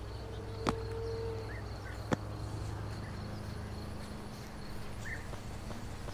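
Quiet yard ambience: a steady low hum and a faint, steady high-pitched insect buzz, with two sharp clicks about a second and a half apart.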